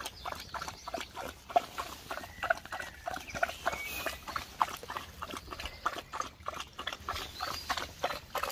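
A Doberman lapping water with its tongue, a quick, even run of laps at about four a second.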